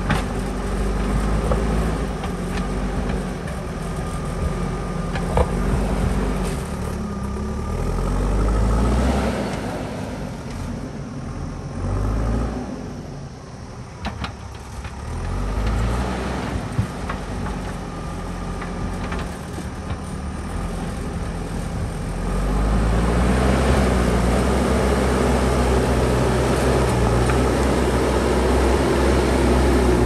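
JCB backhoe loader's diesel engine working under load as the front bucket pushes earth and rock, its pitch rising and falling. It eases off around the middle, then runs louder and steadier from about two-thirds of the way through.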